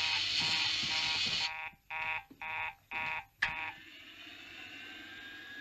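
Electric alarm buzzer sounding, steady at first and then in short broken bursts, stopping a little before four seconds in. A faint whine slowly rising in pitch follows it.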